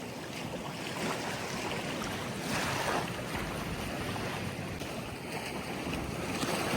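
Ocean waves washing onto the beach, with one wave surging in about two and a half seconds in, and wind on the microphone.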